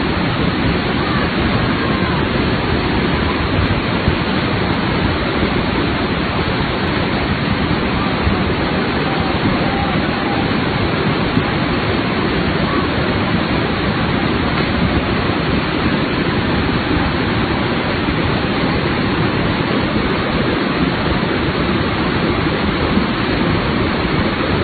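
Loud, steady rush of a muddy flash-flood torrent, a river swollen by torrential rain, tearing down its channel.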